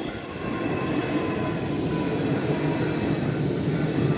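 Hanshin 5700-series electric commuter train passing close by at a level crossing, its wheels rumbling on the rails. Steady high tones from the crossing's warning bell ring over the top.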